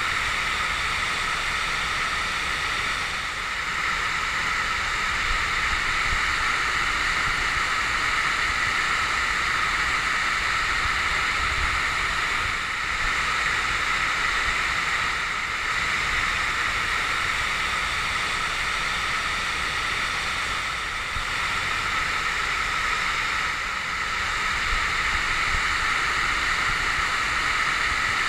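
A waterfall rushing steadily, a constant hiss of falling water.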